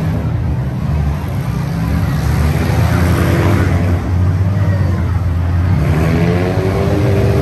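Demolition derby car engines running loudly, their pitch rising and falling as the drivers rev them while pushing through the mud.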